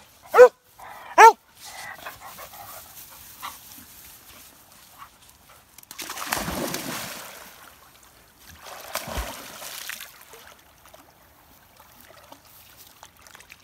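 A dog barks twice, two short, loud, pitched yelps close together near the start. Later come two longer rushes of splashing water, about six and nine seconds in, as a dog goes into the river and swims.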